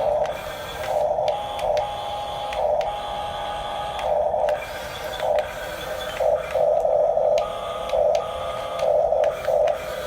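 Huina 1569 remote-control toy bulldozer's small electric drive motors and plastic gears whining in short, irregular bursts over a steady hum as it is driven in stops and starts.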